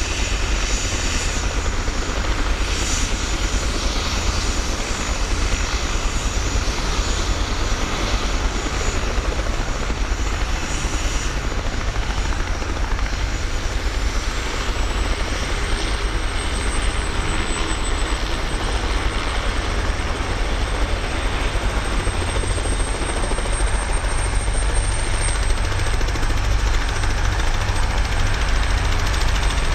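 Robinson R44 piston-engined helicopter hovering low, its engine and rotor running steadily with a constant rotor throb. A thin high whine rises and then holds about halfway through.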